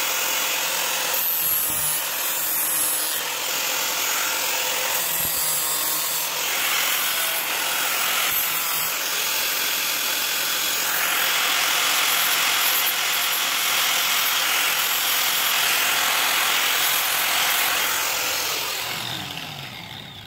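Angle grinder with an abrasive disc running against the steel of a sickle blade being shaped into a karambit, a continuous grinding hiss. Near the end it is switched off and winds down, its pitch falling.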